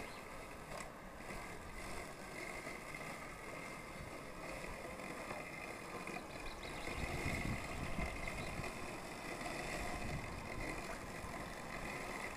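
Worx Landroid robotic lawnmower driving across the grass back to its charging base, its electric motors giving a steady faint whine.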